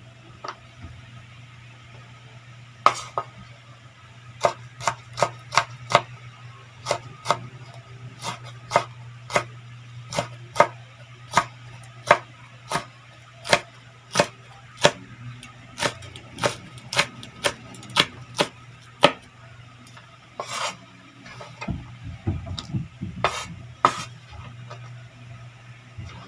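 Kitchen knife chopping green chili peppers on a bamboo cutting board: a run of sharp knocks, about two to three a second, then a few irregular knocks and scraping near the end. A steady low hum runs underneath.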